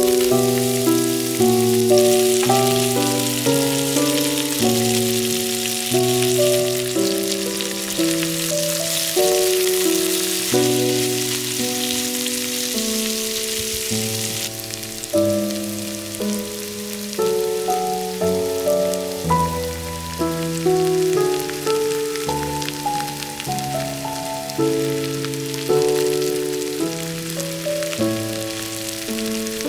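Onions sizzling in a frying pan under background music, a melody of held notes. The sizzle drops lower about halfway through.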